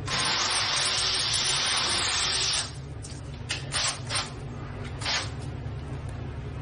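Cordless drill driving a screw into a hardwood door, running steadily for about two and a half seconds and then stopping; the installer thinks the pilot hole is not deep enough. A few short clicks and knocks follow.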